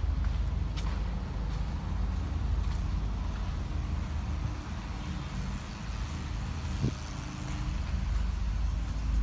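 A steady low mechanical rumble with a faint hum, with a few light clicks.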